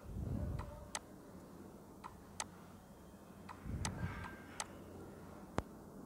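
Computer mouse button clicks: a handful of sharp single clicks spread a second or so apart, several in quick press-and-release pairs. There are two low dull bumps, one at the start and one about four seconds in.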